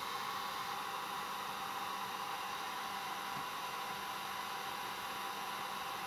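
Heat gun running steadily, an even airy hiss with a faint low hum, while it heats a solder-seal heat-shrink connector so that the sleeve shrinks and the solder inside melts.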